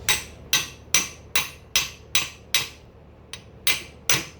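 Hammer tapping on metal in a steady rhythm, about two to three blows a second, each with a brief bright ring and a short pause about three seconds in: driving a part down into place while rebuilding a Cub Cadet 70 lawn tractor rear end.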